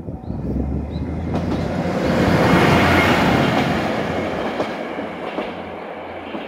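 Tenryu-Hamanako Railway TH3000 diesel railcar passing close by, its engine hum and wheels rolling and clacking on the rails. The sound swells to a peak about three seconds in, then fades as the car moves away.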